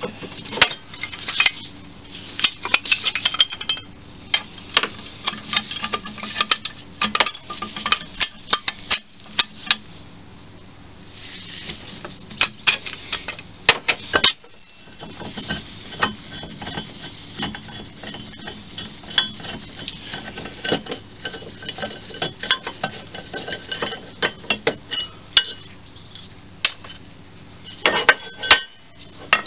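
Irregular metallic clinks, taps and knocks as small steel parts, bolts and hand tools are handled and set down while a lathe is being stripped down.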